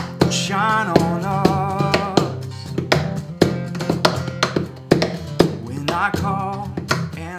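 Two acoustic guitars strumming steadily, with a voice singing a few long wavering notes without clear words about a second in and again near the end.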